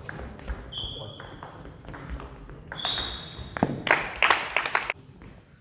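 Table tennis rally: the ball clicks off bats and table, and shoes squeak twice, high and drawn out, on the sports hall floor. About three and a half seconds in comes a cluster of louder sharp taps as the point ends.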